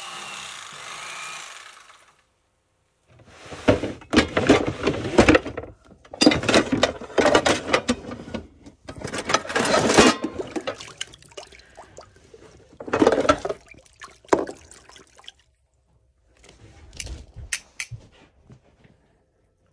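Electric fillet knife buzzing steadily for about two seconds, then cutting off. After a short pause, metal pots, pans and utensils clatter and scrape in loud irregular bouts as they are dug out of a storage bin, fading to a few light knocks near the end.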